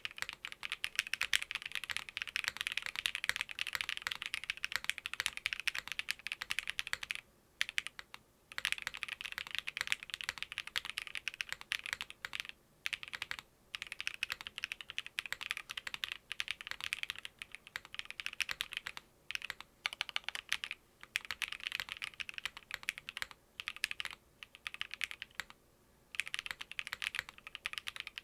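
Fast, continuous typing on a custom mechanical keyboard (Maker Keyboards Scarlet WKL, top mount with a POM plate, lubed and filmed Clackbait linear switches and DCX keycaps), keystrokes clacking in runs of several seconds broken by brief pauses.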